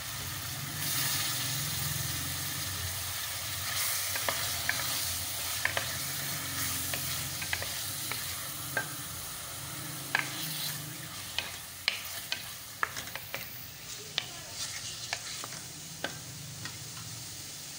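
Boneless chicken pieces sizzling in hot oil and garlic-ginger paste in a metal pan. A wooden spoon stirs them, tapping and scraping the pan with sharp clicks that come more often in the second half.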